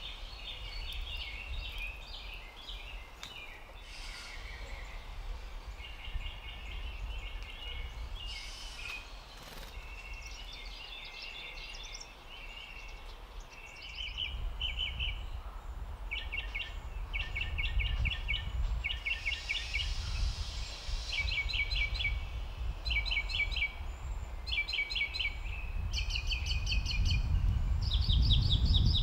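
Small birds chirping and trilling in quick repeated phrases. A low rumble swells in the second half and grows loudest near the end.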